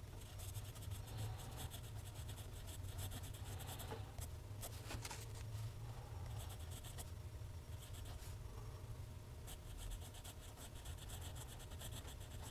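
Steel nib of a TWSBI ECO fountain pen scratching faintly across Clairefontaine paper as cursive words are written, in runs of quick strokes broken by short pauses between words.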